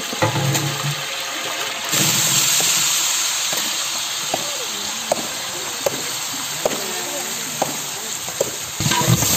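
Sliced onions and whole spices sizzling in hot oil in a large aluminium pot. The sizzle jumps louder about two seconds in as the onions go into the oil, then runs on steadily with light scrapes of a long metal ladle.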